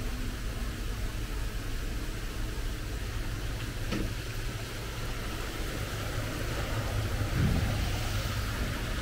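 A motor vehicle's engine running with a steady low rumble, growing louder about seven seconds in.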